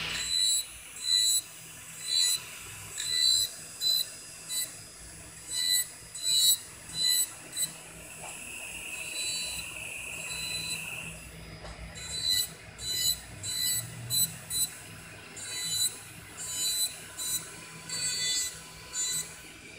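Electric nail drill spinning a ceramic cone bit with a steady high whine, grinding gel polish off a fingernail in repeated rasping strokes about one or two a second. For a few seconds around the middle the grinding runs on without a break.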